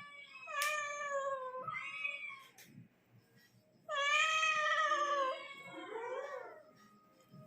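A kitten meowing four times: two meows back to back, then a longer, louder meow about four seconds in, followed by a fainter, wavering one.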